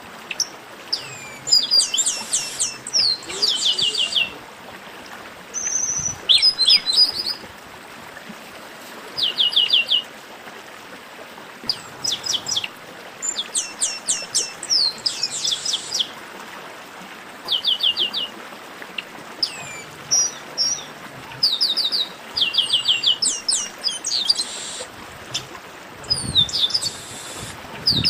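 Chestnut-capped blackbird (garibaldi) song: quick runs of four to six short, high notes, each note sliding down, repeated every second or two.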